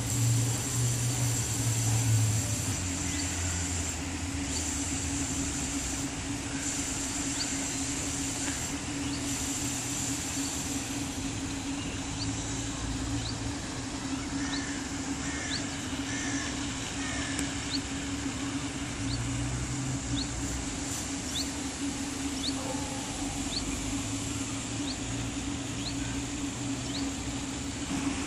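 Outdoor city-park ambience: a steady low hum of distant traffic. From about a third of the way in, a bird repeats a short high chirp roughly once a second.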